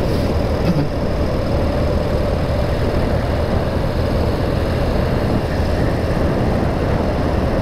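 BMW R65's 650 cc air-cooled boxer twin running steadily under way at a constant speed, mixed with wind rush.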